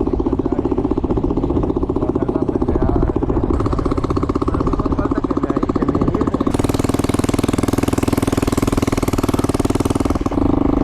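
Motorcycle engine running steadily with fast, even firing pulses while riding. A steady hiss joins about six and a half seconds in.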